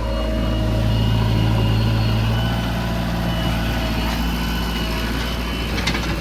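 Heavy diesel engine running steadily at an even, low speed, with a brief click near the end.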